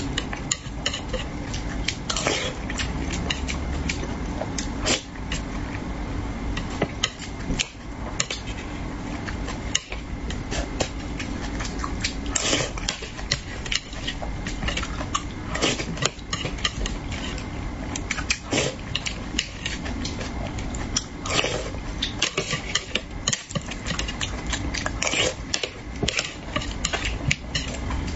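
Eating sounds: a metal spoon and chopsticks clicking and scraping against a dish of braised fish in sauce, with mouth sounds of eating in between. A steady low hum runs underneath.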